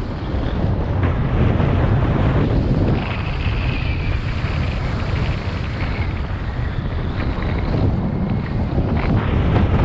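Wind buffeting the microphone while a snowboard slides and carves downhill, its base and edges hissing and scraping over crusty snow.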